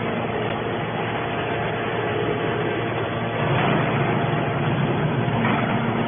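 Hydraulic scrap metal baler running: a steady, loud machine noise from its hydraulic power unit with a faint hum in it, shifting slightly about three and a half seconds in.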